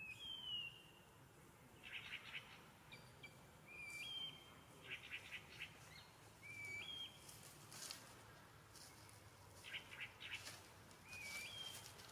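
Faint bird calls in the trees: about four short whistled notes, each rising in a step, spaced a few seconds apart, with brief bursts of fast chattering between them.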